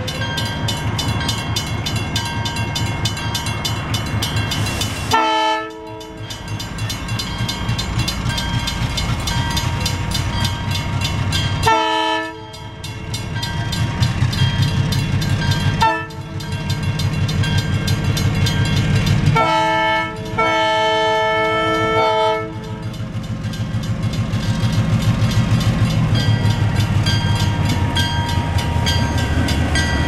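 An old diesel locomotive sounds its air horn in a series of blasts for a grade crossing, the last one the longest, over the steady rumble of its diesel engine, which grows louder as the locomotive comes close. The uploader considers this horn bad sounding.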